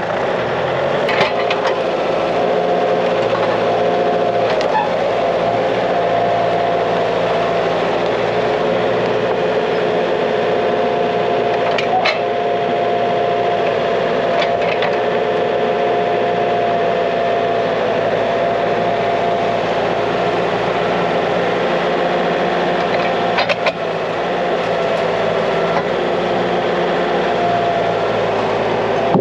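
Kioti RX7320 tractor's diesel engine running steadily, with a few light knocks over it.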